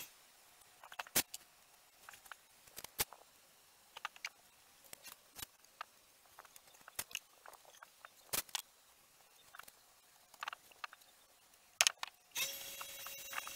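Scattered faint clicks and light taps at irregular times from hands handling a weathered wooden box made of old boards. A steady hum with a faint held tone starts near the end.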